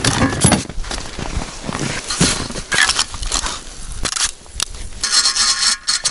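Ice auger being handled and assembled out of a plastic sled: repeated knocks, clatter and rustling of the metal auger and plastic parts, with a short steady rasping noise about five seconds in.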